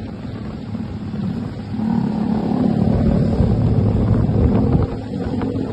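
Motorcycle engine running under way, with wind buffeting the microphone. The engine gets louder about two seconds in, then eases off shortly before the end.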